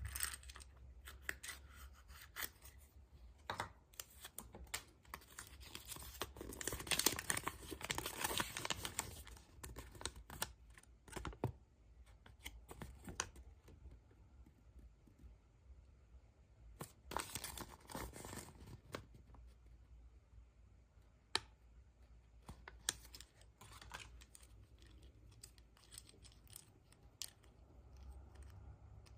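Hands unwrapping and handling packaging: scattered clicks and rustles, with two longer stretches of tearing and crinkling, the first a few seconds in and the second past the middle.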